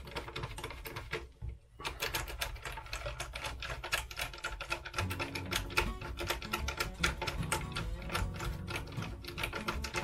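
Screwdriver driving screws into a plastic RC loader chassis: rapid, continuous clicking of the driver turning in the screw heads. A steady low hum joins about halfway through.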